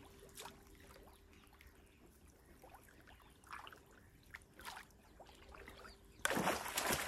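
Water splashing: after a quiet stretch with only a few faint chirps, a sudden loud rush of splashing water starts about six seconds in.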